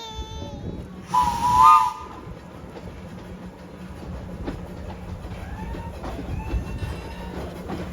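A 15-inch gauge miniature railway train sounds a short, loud whistle about a second in, then runs on with a steady low rumble.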